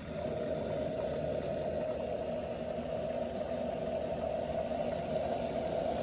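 Gourmia espresso machine running steadily as it brews espresso into its glass carafe; the sound comes on right at the start and holds even.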